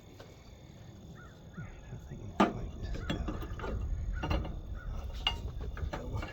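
Metal parts knocking and clinking as they are handled and tapped: a sharp knock about two and a half seconds in, then a run of lighter clinks and taps.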